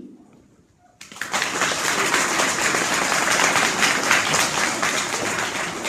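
A hall of schoolchildren clapping, starting suddenly about a second in after a brief hush and continuing as steady applause.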